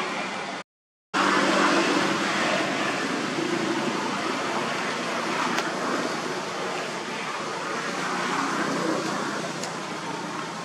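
Steady rushing outdoor background noise with a faint low hum, broken by a brief drop to silence about a second in.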